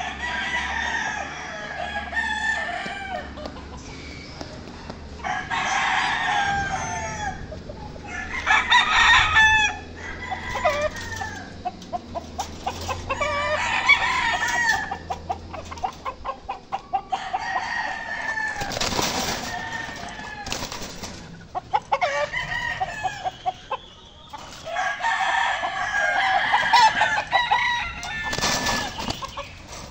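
Gamecock roosters crowing one after another, with a long call every few seconds and some calls overlapping.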